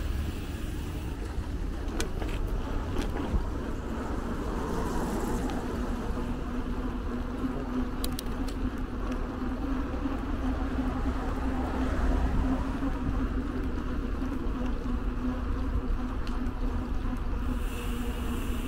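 Street and traffic noise heard from a moving bicycle: a steady low rumble, joined about five seconds in by a steady low hum that fades near the end, with a few faint clicks.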